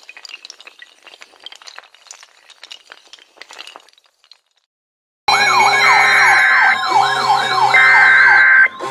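Faint, rapid crackling clicks for about four seconds, a brief silence, then several emergency-vehicle sirens start together loudly: fast yelping sweeps and a slower wail over steady high tones that cut in and out.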